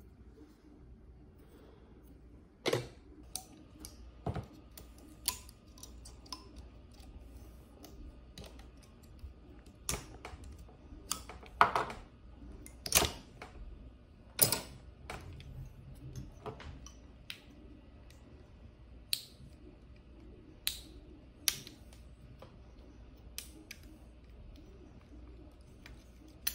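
Irregular sharp clicks and clinks of cylindrical LiFePO4 cells, their metal tabs and plastic holders being handled and knocked together while the pack is taken apart. There is a scissors snip on a tab near the end.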